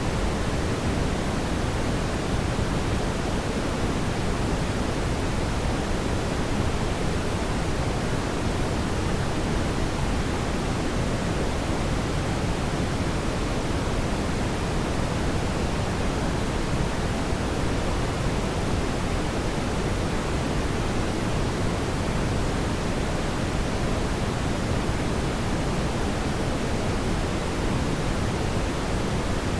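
Fireplace fire burning as a steady, even hiss weighted toward the low end, with no distinct pops or crackles standing out.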